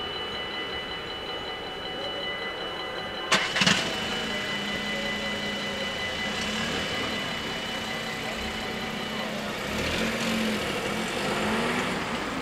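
Level-crossing warning bells ring steadily, then sharp mechanical clunks about three seconds in as the half-barrier booms start to lift. A low hum follows while they rise. Near the end a car's engine pulls away and drives over the crossing.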